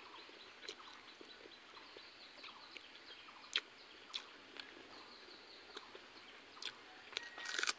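Close-up mouth sounds of someone eating rice with beans and dry fish by hand: soft, scattered chewing clicks and lip smacks, with a louder run of smacks near the end as another handful goes in.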